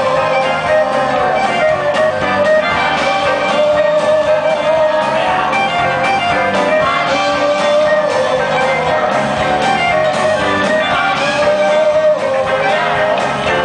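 A live band playing a rock song at full volume, with guitar and a held, wavering melody line over the band.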